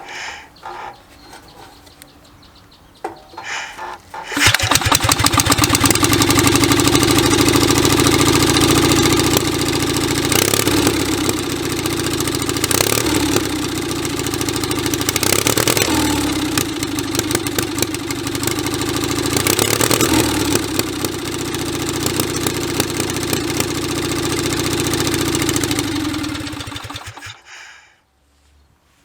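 Onan CCKA two-cylinder air-cooled engine, fed by a Honda carburetor on a 3D-printed intake manifold, starting about four seconds in and running steadily for over twenty seconds, its speed briefly dipping and recovering several times, before it is shut off and runs down near the end.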